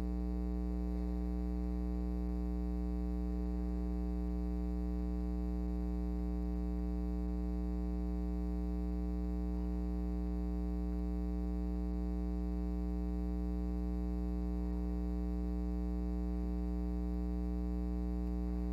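Steady electrical mains hum from the audio feed, a low buzz with a ladder of overtones above it.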